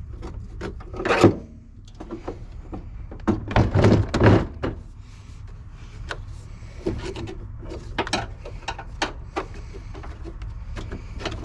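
Hand tools knocking and scraping on a battery terminal clamp as it is worked onto the post: irregular clicks and knocks, with a loud hit about a second in and a burst of knocks around four seconds in.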